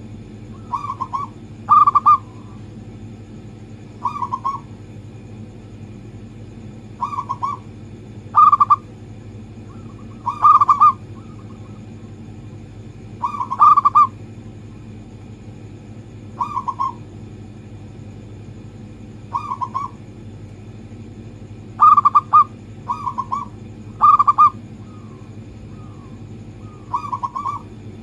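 Zebra dove (perkutut) cooing in short bursts every one to three seconds, over a steady low hum.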